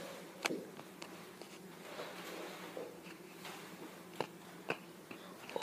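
Quiet room tone with a few faint, short clicks and taps, two of them close together near the end.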